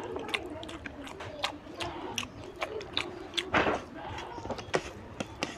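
Close-up eating sounds: wet lip smacks and mouth clicks from chewing, with fingers squishing rice into oily curry. The clicks come a few times a second and are uneven, the loudest about three and a half seconds in.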